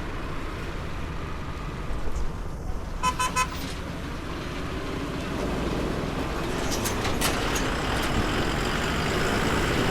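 Road traffic rumbling steadily, with a vehicle horn giving three short beeps about three seconds in.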